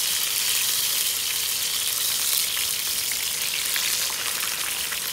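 Marinated milkfish (bangus) frying in hot oil in a pan: a steady sizzle with fine, rapid crackling.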